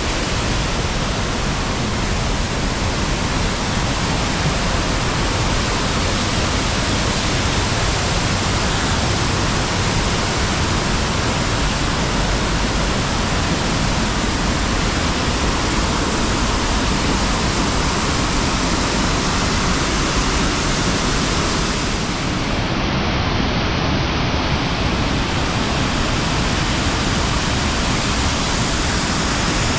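Muddy water rushing down a rocky gorge and spilling over a small waterfall, a loud, steady, even rush.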